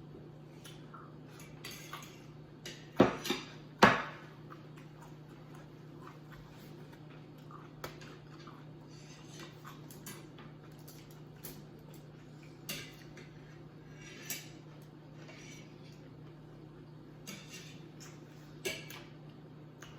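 A spoon clinking and scraping against plates while eating, with scattered light clicks and two loud knocks about three and four seconds in. A steady low hum sits underneath.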